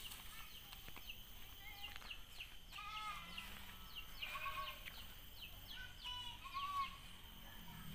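Faint animal calls: a run of short, repeated pitched calls and quick falling chirps, busiest between about three and seven seconds in.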